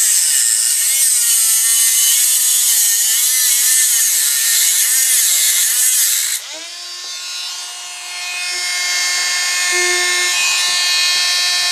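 Dremel rotary tool with a thin grinding disc cutting off a protruding piece at a camera's tripod mount: a high whine that wavers in pitch as the disc bites. About six seconds in it drops and goes quieter, then builds again.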